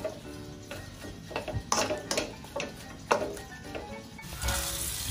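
A spatula stirs and scrapes pork strips in a dry nonstick wok, giving several sharp clacks against the pan. The pork cooks in its own juices before any oil goes in, and about four seconds in the pan starts a steady sizzle. Background music plays underneath.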